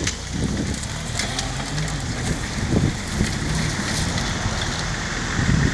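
A military jeep's engine running as it drives off-road, a low rumble under a steady crackling hiss of wind and rustle on the microphone.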